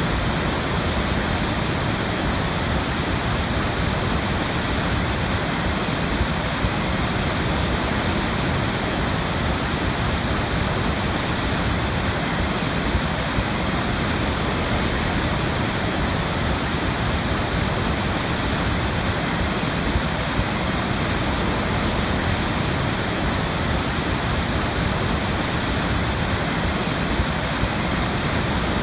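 Big waterfall: water falling and crashing in a steady, dense rush that does not change.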